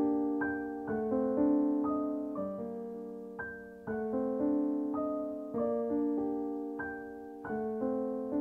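Background piano music: a slow, gentle line of notes and chords, each struck and left to fade before the next.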